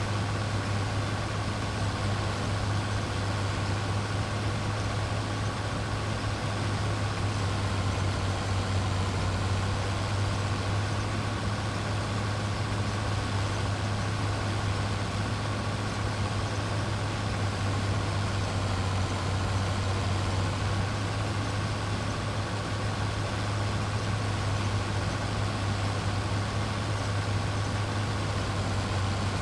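Heavy farm machinery engine running steadily at constant speed: a deep even drone with a faint steady whine above it.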